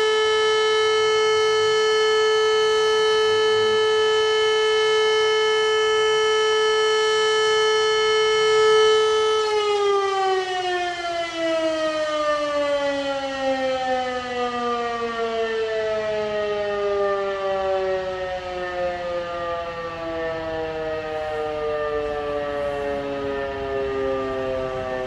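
Civil defense siren sounding a steady tone, then about nine and a half seconds in starting to wind down, its pitch falling slowly and evenly.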